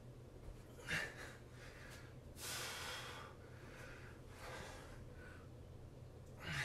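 A man breathing hard from exertion during plank and push-up work: about five forceful breaths through the nose and mouth, the longest about two and a half seconds in, over a faint steady low hum.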